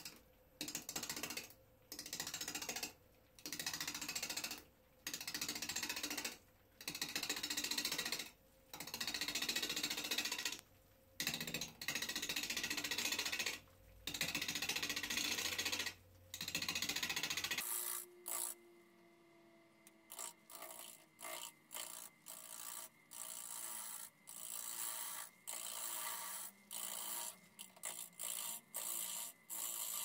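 Turning tool cutting a spinning hazel blank on a wood lathe, in repeated passes of a second or two with short pauses between. After about eighteen seconds the passes turn shorter and quicker, light scraping cuts.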